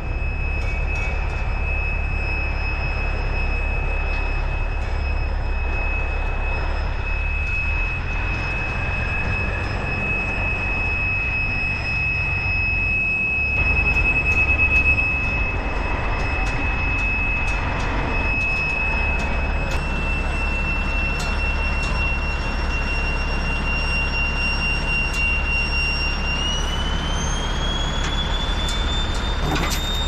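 Caterpillar D8H crawler bulldozer moving under its own power: its diesel engine runs with a steady low rumble and a high whine that climbs in pitch near the end, over scattered clanks from the tracks.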